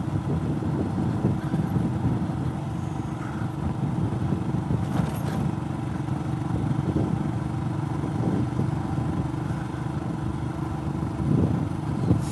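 Royal Enfield Himalayan's single-cylinder engine running steadily at a cruise on a gravel road, over the rumble of tyres on the loose surface. A short clatter about five seconds in.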